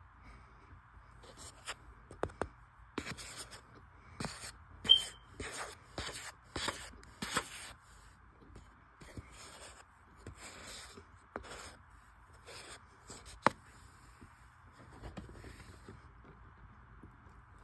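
Metal spoon scraping and pressing into loose cornstarch on a plate: a run of about a dozen short, crunchy scrapes, with two sharp clicks, one about five seconds in and one near the end of the run.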